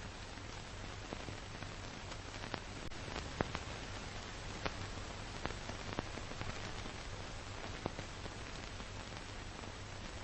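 Steady hiss with a low hum and scattered sharp clicks and crackles: the surface noise of an old film transfer with no recorded sound, the loudest click about three and a half seconds in.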